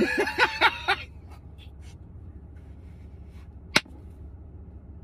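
A man laughing hard: a voiced burst of laughter in the first second, then breathy, nearly silent laughter, with a single sharp click about four seconds in, over a low steady hum.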